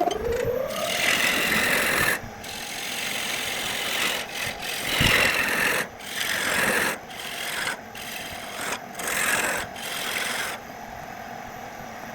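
Wood being rubbed with an abrasive in repeated rasping strokes, each a second or two long with short breaks between them. The strokes stop about ten and a half seconds in.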